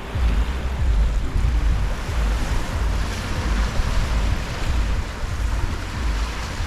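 Gentle ocean waves lapping and washing up a sandy shore, a wash of surf swelling about two seconds in and easing off after. Wind buffets the microphone, adding a gusty low rumble underneath.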